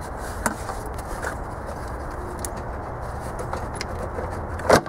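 Plastic engine cover on a Nissan Titan being pulled loose by hand: a few light clicks, then one sharp knock near the end as it pops off its mounts, over a steady background hiss.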